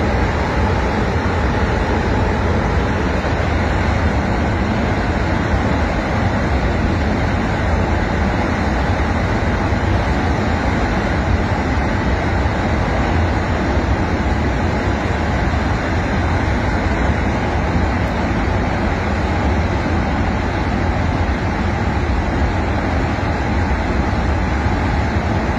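Flash-flood debris flow of muddy water and rocks rushing down a mountain stream channel: a loud, steady, rumbling rush.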